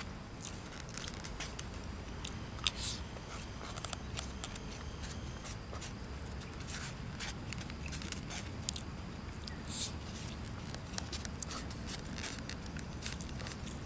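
Eating at a table: chopsticks and a plastic spoon picking through fish in a styrofoam food box, with scattered small clicks and scrapes and some chewing. A steady low rumble runs underneath.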